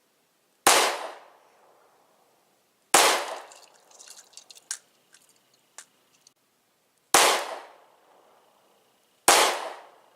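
Four pistol shots fired one at a time at uneven intervals, each with a short tail of echo. A few light clicks and ticks follow the second shot.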